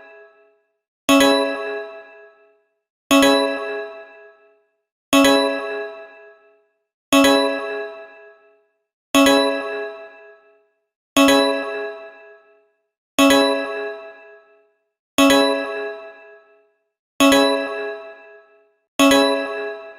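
Belize emergency alert (EAS) alarm tone: a bell-like chime struck once every two seconds, ten times over, each strike ringing out and fading away before the next.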